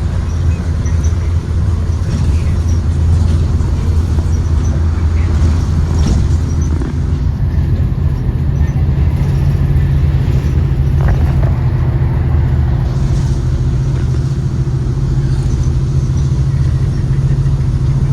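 Blue Bird Vision school bus with a Ford 7.3L gasoline V8 driving, heard from inside the cabin: a steady engine drone and road noise, with the engine note rising partway through.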